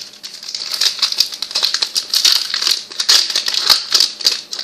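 Crinkling of a Magic: The Gathering booster pack's wrapper being opened, with playing cards handled; a continuous crackle with many small sharp clicks.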